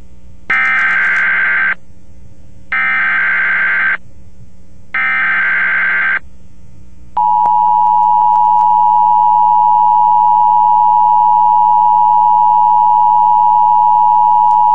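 Emergency Alert System broadcast signal: three short bursts of digital data squawk (the SAME header), each about a second long, then the EAS attention signal, a loud steady two-tone alarm starting about seven seconds in.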